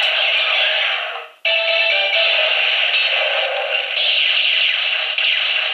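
Gabutyra de Carnival transforming toy gun playing its electronic music and voice sound effects through its small built-in speaker, thin and without bass. The sound breaks off briefly about one and a half seconds in, then starts again.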